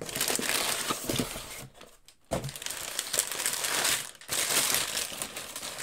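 Brown kraft packing paper crinkling and rustling as hands dig through it in a cardboard shipping box, in three stretches with a short pause about two seconds in and another just after four seconds.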